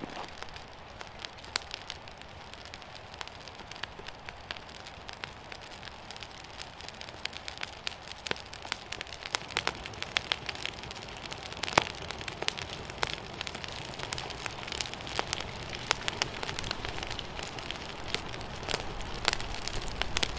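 Campfire of birch bark, twigs and split logs crackling as it catches, burning wet wood. A steady hiss runs under sharp pops that come more often in the second half, the loudest about twelve seconds in.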